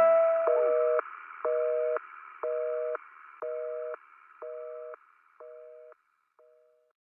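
A telephone busy signal: a two-tone beep about once a second, seven times, each quieter than the last as it fades out. The last chord of the song dies away under the first beeps.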